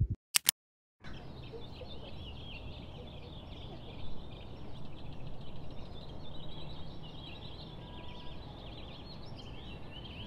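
Two sharp clicks and a moment of dead silence at the start. Then small birds chirp and twitter continuously over a steady low outdoor rumble.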